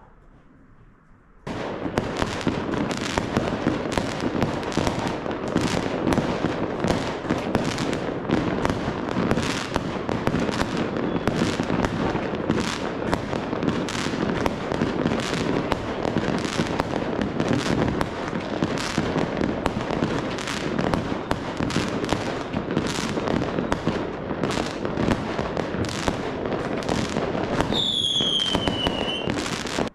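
Fireworks going off overhead: a dense, continuous crackling barrage thick with sharp pops that starts suddenly about a second and a half in. Near the end a whistling firework gives a falling whistle.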